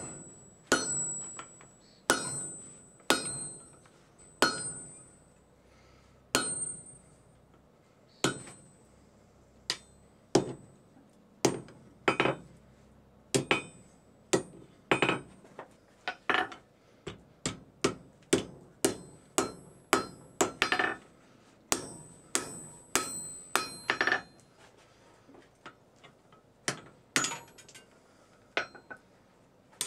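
Hand hammer striking a hot railroad spike on a steel anvil in hand forging. The blows come about a second apart at first, each with a short high ring from the anvil, then quicken to runs of two or three a second in the middle, and slow again near the end.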